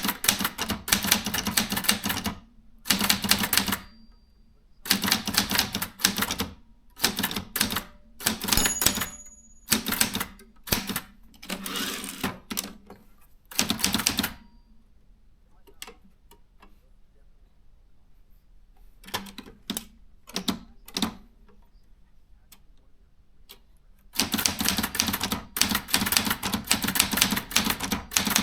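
Brother 440 TR typewriter being typed on: quick runs of keystrokes lasting a second or two with short pauses between them, a lull about halfway through with only a few scattered strokes, then a longer unbroken run of typing near the end.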